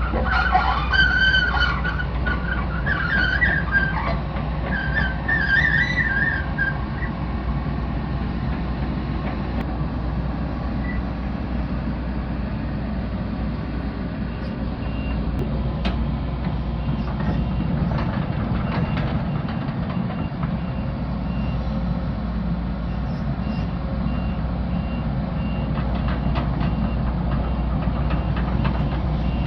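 Excavator diesel engine running steadily under load, with wavering high squeals in the first several seconds. From about halfway on, a travel alarm beeps at a steady rhythm, with a few knocks and scrapes.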